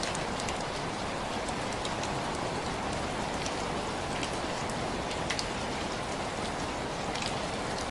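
Steady rainfall, an even hiss with scattered sharp drop ticks landing on a surface.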